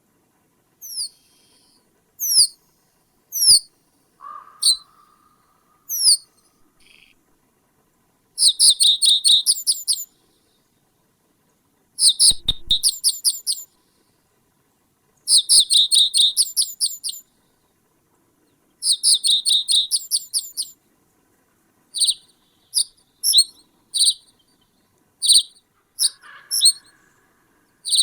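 A small bird calling: single sharp, high notes that slide downward, and every few seconds a rapid trill of such notes lasting a second or two.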